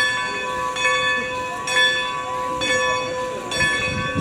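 The bell of Baldwin 2-10-0 steam locomotive No. 90 ringing, one clear strike about every second with the ring held between strikes, as the engine starts to move off. Low chuffs begin near the end.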